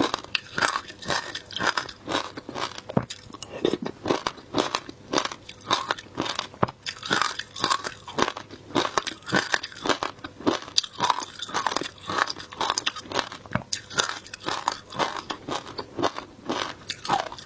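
Close-up crunching and chewing of frozen shaved ice flavoured with passion fruit, in quick, irregular bites.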